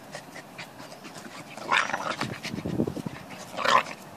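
A Pembroke Welsh corgi and a Staffordshire bull terrier puppy play-wrestling and growling. Two loud vocal outbursts come about two seconds in and near the end, with a lower growl between them.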